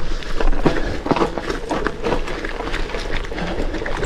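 Gravel bike's Panaracer GravelKing 650b×43c tyres rolling over loose gravel, with a dense crunch and many short sharp clicks and knocks from stones and the rattling bike.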